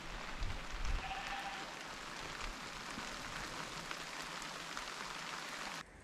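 Steady rain falling: an even hiss with scattered tiny drop ticks, with a couple of low thumps on the microphone about a second in. It stops abruptly near the end.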